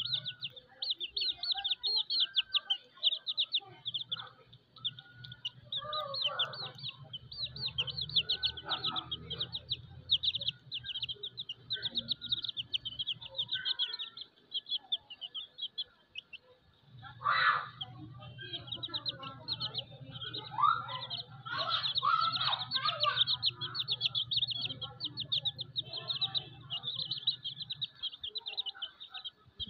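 Young chicks peeping rapidly and continuously, with a hen's soft low clucks scattered among them. A low hum cuts in and out.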